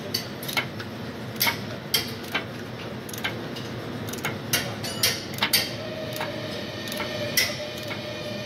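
Socket ratchet clicking as it drives a hand thread tap into an oil pan's drain-plug hole, re-cutting the damaged threads. The clicks come singly and in short pairs at an uneven pace.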